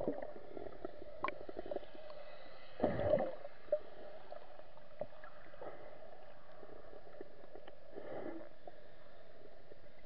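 Muffled underwater sound picked up by a camera held under the sea: a steady faint hum with scattered small clicks, a louder gurgling burst about three seconds in and a softer one near eight seconds.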